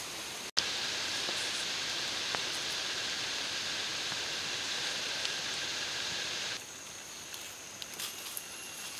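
Steady outdoor forest ambience: an even hiss with a faint steady high tone in it. It breaks off for an instant about half a second in and steps down to a quieter level about two-thirds of the way through, with a few faint rustles and clicks.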